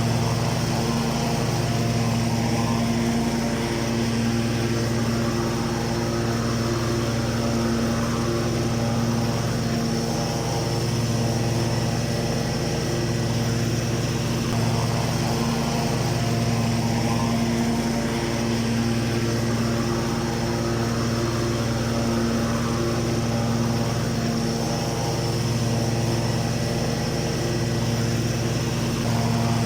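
Ride-on lawn mower engine running steadily at a constant speed, with a slight wavering in its low hum.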